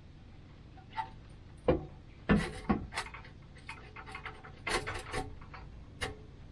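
Exhaust pipe being worked into place, the pipe end pushed onto a flared pipe end: a string of irregular scrapes and knocks, about nine in all, several close together in the middle.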